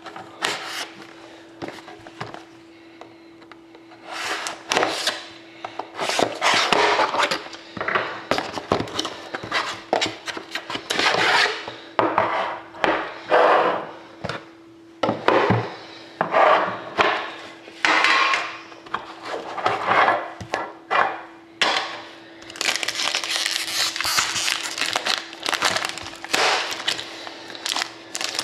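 Hands opening a hockey card box: repeated cardboard scraping and rubbing, and a metal tin being handled and opened. About 22 seconds in, this gives way to a foil card-pack wrapper crinkling steadily. A faint steady hum sounds underneath.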